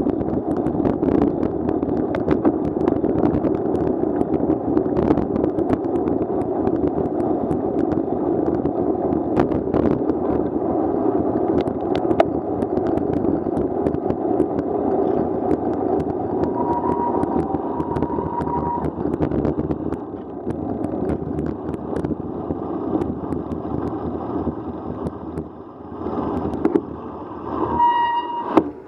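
Steady rush of wind and wet-road noise on a bike-mounted camera while cycling, with cars passing on the rain-soaked street and scattered clicks. The noise falls away in the last few seconds as the bike slows, and there is a short squeal near the end.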